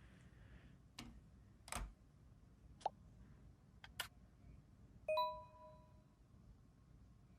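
A few soft clicks and taps, then a single short ringing ding about five seconds in that fades out within a second.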